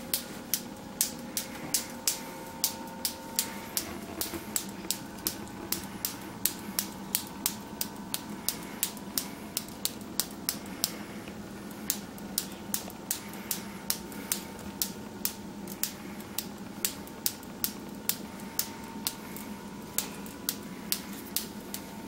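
Scissor-type metal tea infuser tongs being squeezed open and shut, clicking sharply about twice a second, with a couple of short pauses.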